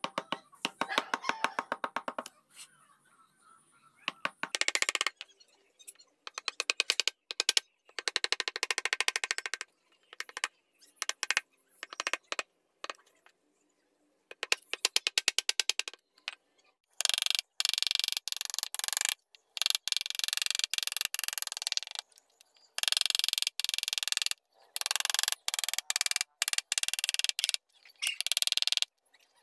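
Hand carving gouge cutting into a wooden board in a series of strokes, each a rasping run of fast clicks and scraping as the edge chatters through the grain, with short pauses between strokes.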